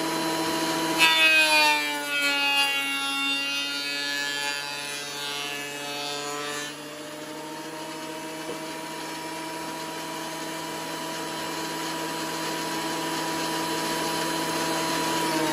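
Benchtop thickness planer running. Its motor whine drops in pitch and grows louder as a board feeds through the cutterhead for about six seconds, then runs free at a steady pitch. Near the end it is switched off and begins to wind down.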